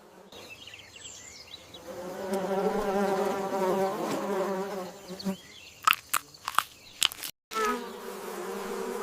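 Steady, insect-like buzzing. It drops away about five seconds in, a few sharp clicks follow, and after a momentary cut to silence the buzzing resumes.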